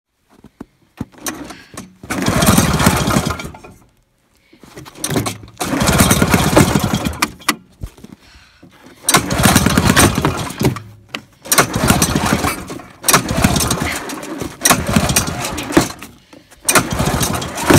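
Two-cylinder air-cooled two-stroke engine of a 1974 Polaris Electra snowmobile being cranked again and again, about six times. Each try gives a short burst of engine noise that dies away: the engine will not start.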